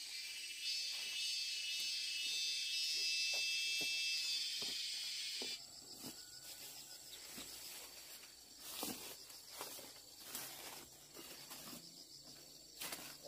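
Insects trilling in a dense, high-pitched chorus that cuts off suddenly about five and a half seconds in. After that a fainter steady insect whine remains, with scattered rustles and light clicks.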